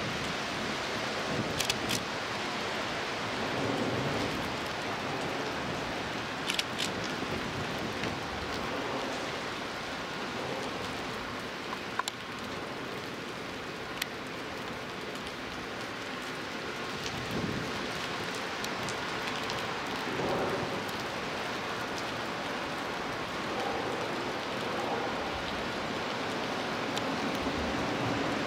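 Steady hiss of light rain, with a few faint ticks.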